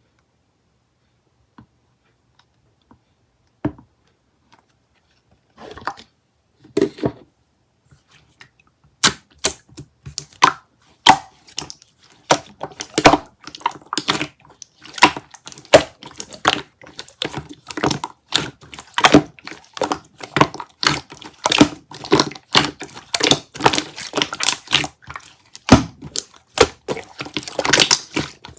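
Yogurt slime being pressed and squished by hand, making sticky clicks and crackles. Only a few scattered sounds at first, then from about nine seconds in a dense run of several clicks a second.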